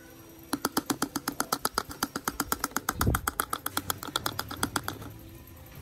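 Plastic spoon rapidly tapping and clicking against a plastic funnel of baking soda, about nine sharp clicks a second for some four seconds, with a dull thump midway.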